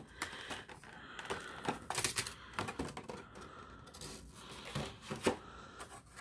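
Stiff clear plastic blister packaging crackling and clicking as it is handled and pulled apart, in irregular sharp clicks, the loudest about five seconds in.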